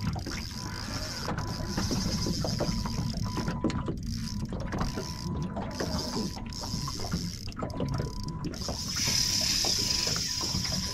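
Spinning reel being cranked against a hooked fish, its gears and line roller giving a steady run of small mechanical clicks and ticks.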